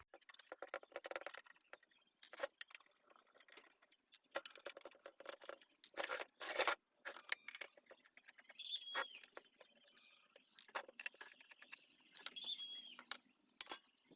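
Faint hand-tool work on a DOD 430 graphic equalizer's metal cover: irregular clicks, light knocks and scrapes as the cover screws are undone and the lid is lifted off.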